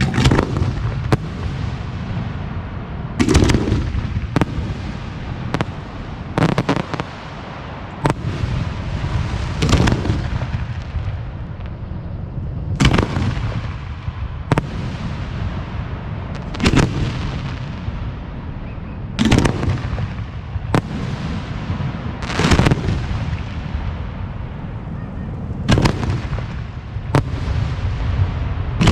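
Professional display aerial shells (4- to 6-inch) going off in a steady barrage: a loud bang every one to three seconds, each trailing off in a rumbling echo, over a continuous low rumble.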